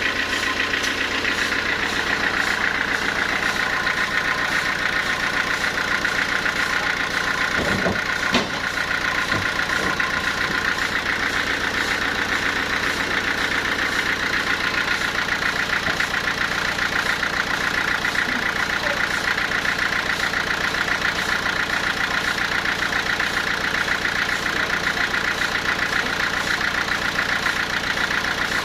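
Sawmill machinery running steadily, with a single knock about eight seconds in.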